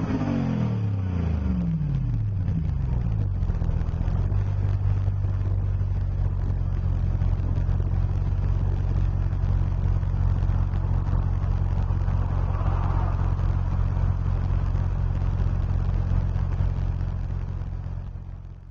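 2006 Land Rover LR3 HSE's V8 running through a MagnaFlow aftermarket exhaust: the revs fall away after a blip and settle into a steady idle within about four seconds, then the sound fades out at the end.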